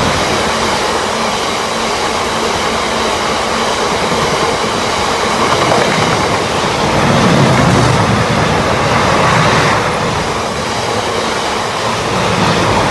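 A long freight train rolling past, its wagons' wheels running steadily over the rails with a loud, continuous rush and a low rumble that swells about halfway through and again near the end.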